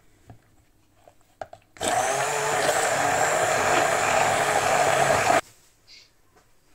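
Immersion hand blender whirring in a plastic beaker, blending a yellow huancaína sauce with chunks of fresh cheese. It starts about two seconds in, runs steadily for about three and a half seconds, then cuts off suddenly.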